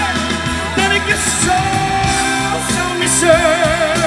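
A man singing a Dutch pop ballad live into a microphone over backing music. He holds a long note, then sings a note with a wide vibrato near the end.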